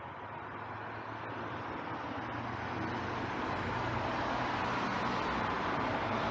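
Road traffic noise that grows steadily louder, a rushing sound with a low engine hum underneath, as of a vehicle approaching.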